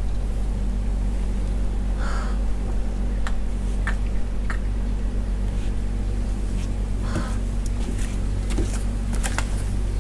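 A steady low motor hum, holding one even pitch throughout, with a few faint clicks and two short rustles.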